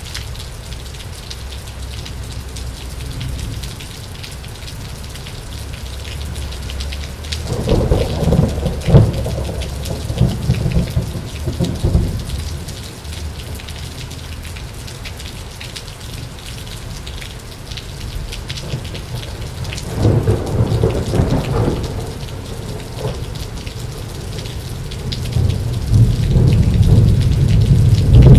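Heavy rain falling steadily, with three rolls of thunder: a rumbling peal about a third of the way in, a shorter one past the middle, and a louder rumble building near the end.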